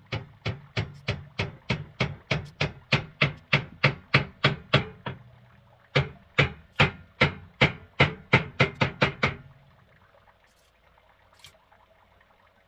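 Rapid repeated knocking blows, about four a second, in a run of about five seconds, then after a short pause a second run of about three seconds.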